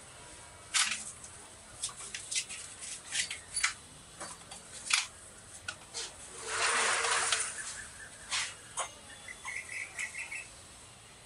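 Small household objects being handled on a shelf: a string of sharp clicks and knocks, a rustling burst about six and a half seconds in, and a few quick high chirps near the end.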